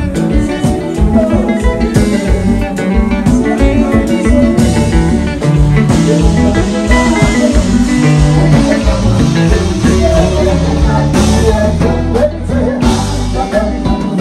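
Live band playing, with a drum kit and an electric bass guitar carrying the groove.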